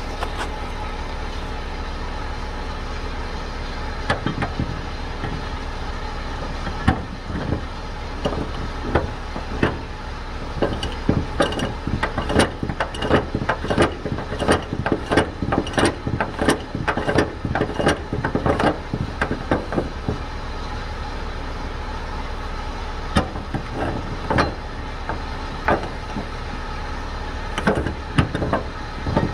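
Steady low rumble of an idling truck engine, with a run of irregular clicks and knocks starting about seven seconds in and returning near the end.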